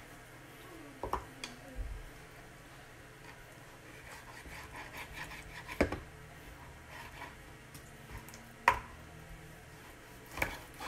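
A long kitchen knife cutting raw pork on a plastic cutting board: quiet slicing strokes broken by several sharp knocks of the blade against the board, the loudest about six and nine seconds in.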